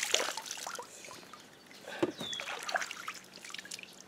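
Water trickling and splashing lightly, with scattered small clicks and crackles. A short, high, falling chirp sounds about two seconds in.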